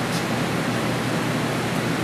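Steady, even hiss of a drill running as it cuts the compression-release hole into a Harley-Davidson Twin-Cam cylinder head.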